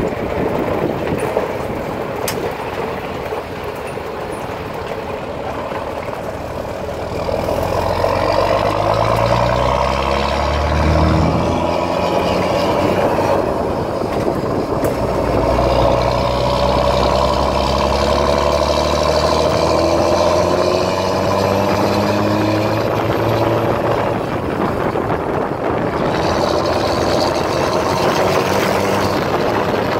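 Diesel pickup truck engine towing a trailer under hard acceleration: its pitch climbs, drops at a gear change about eleven seconds in, then climbs again through the next gear. Wind noise over the microphone runs under it.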